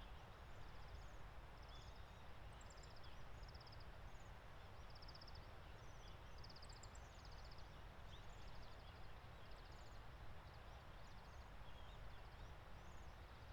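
A flock of waxwings calling: many high, thin, trilled calls, short and often overlapping, repeated throughout over a faint steady background hiss.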